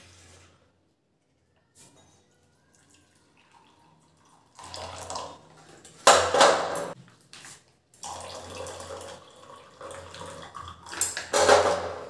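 Hot water poured from a half-melted plastic cup into a steel tumbler, splashing in two spells after a few quiet seconds.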